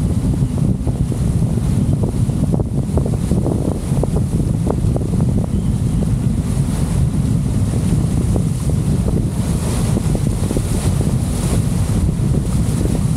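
Strong wind buffeting the microphone in a steady low rumble, with choppy, whitecapped river waves splashing.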